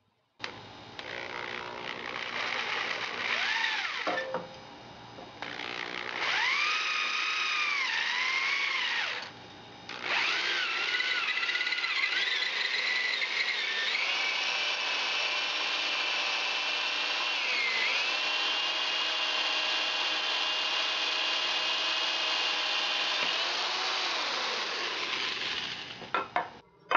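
Electric hand drill boring a 3/8-inch bit through a wooden stock: the motor whine rises and falls in speed and drops off twice in the first ten seconds, then runs steadily for about ten seconds before winding down near the end.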